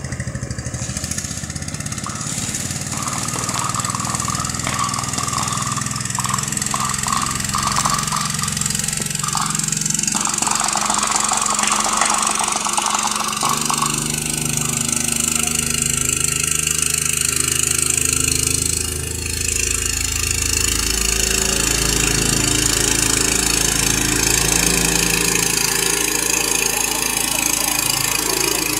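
Robin Subaru engine driving a water pump, running steadily, with the hiss of the water jet from the hose nozzle.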